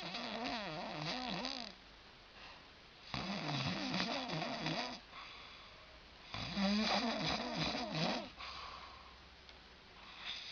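Snoring: three long snores of about two seconds each, roughly three seconds apart, each with a rattling, wavering pitch, and a fourth starting near the end.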